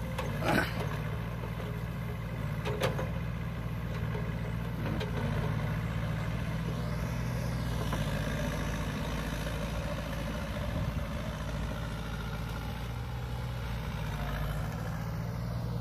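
Sumitomo S160 hydraulic excavator's diesel engine running steadily as it digs a ditch, with two sharp knocks in the first three seconds.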